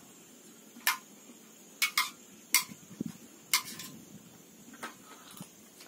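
Stainless-steel plates and utensils clinking during a meal: about eight short, sharp clinks at irregular intervals.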